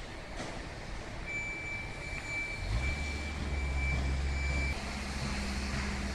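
Construction-site machinery: a heavy engine starts running about three seconds in as a low steady drone, while a high-pitched warning tone sounds for about three seconds over the general site noise.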